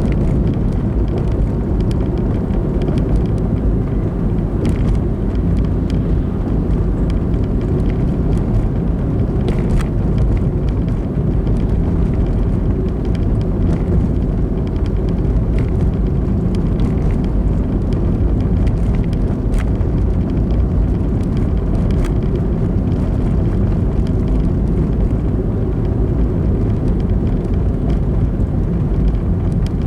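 A car driving along a road, with steady engine and tyre rumble and a few faint, scattered clicks.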